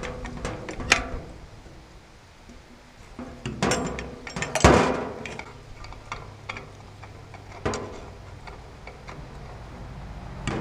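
Socket ratchet clicking in short runs as it turns a case puller's screw, drawing a chainsaw crankshaft and its half-seated main bearing into the crankcase half. There is one sharp metallic knock about four and a half seconds in.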